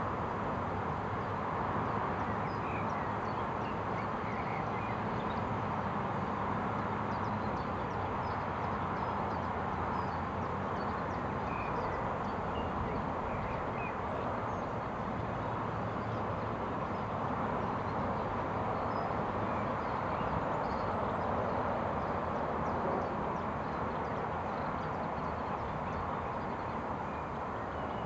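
Steady outdoor background noise with faint, short bird chirps scattered through it.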